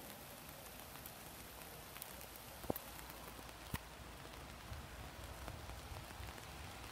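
Steady rush of river water flowing, with two sharp clicks about a second apart midway through.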